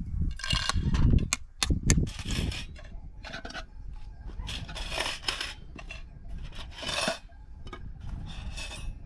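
A series of scraping strokes every second or two, with a few sharp clicks and a low rumble in the first two seconds.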